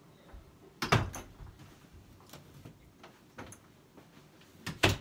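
Bedroom door being shut by hand: a loud knock about a second in and another near the end, with a few faint clicks between.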